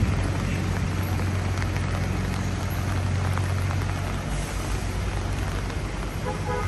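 Rain hiss and city traffic, with a steady low engine rumble underneath. A music-like tone starts near the end.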